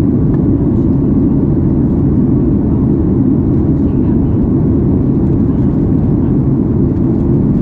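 Boeing 737 MAX 8 cabin noise heard from a window seat in flight: the steady, loud roar of the CFM LEAP-1B engines and rushing airflow, deep and unchanging throughout.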